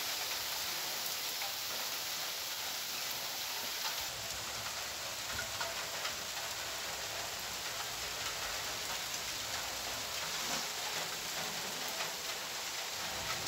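Steady rain falling on the ground and vegetation: an even hiss with scattered ticks of individual drops.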